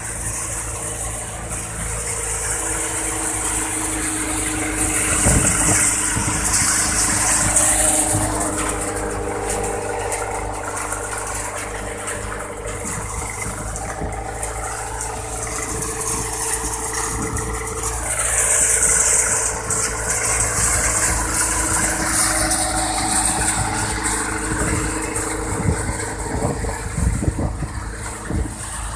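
Annapurna tokri-model pulse thresher running steadily with its drive engine as crop is fed in. Twice the sound swells with a loud hissing rush as loads go through the machine.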